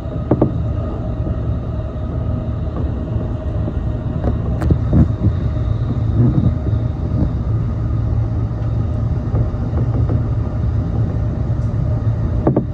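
E233-series electric train running at speed across a steel truss bridge, heard from behind the driver's cab: a steady heavy rumble with a faint steady hum and a few sharp clicks from the wheels on the rails.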